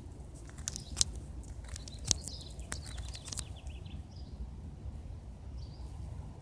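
Small birds chirping and twittering, with two sharp clicks about one and two seconds in, over a low steady rumble.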